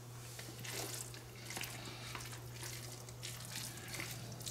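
Faint, wet chewing and mouth sounds of a man eating a mouthful of noodles: irregular small smacks and squelches, over a steady low hum.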